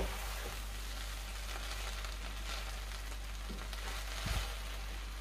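Hot rice in a pot on the stove giving a steady faint sizzle as a wooden spoon stirs it, with a soft scrape of the spoon about four seconds in.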